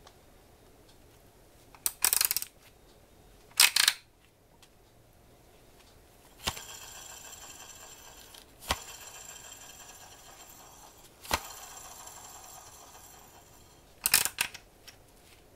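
Taiyo Goriki T500 electric fishing reel worked by hand. Two short rattling bursts of clicks, then a sharp click starts a steady whir that runs about seven seconds, broken by two more clicks, and a last rattle of clicks comes near the end.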